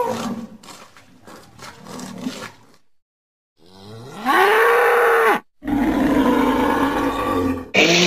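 Deep animal bellows put together as sound effects for a woolly rhinoceros. A rough call fades out over the first three seconds. After a brief silence a loud call rises in pitch and holds, then stops abruptly, and a second loud bellow follows that is also cut off sharply near the end.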